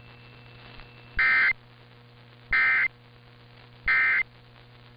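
Emergency Alert System end-of-message signal: three short bursts of SAME digital data tones, each about a third of a second and about 1.3 seconds apart, over a low steady hum.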